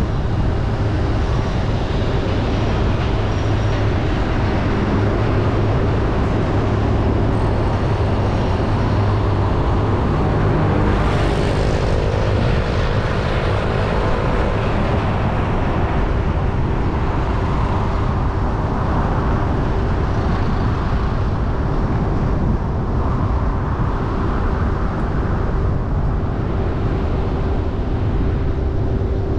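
Car driving through city traffic: steady road and engine noise with a constant hum running through it, swelling briefly about eleven seconds in.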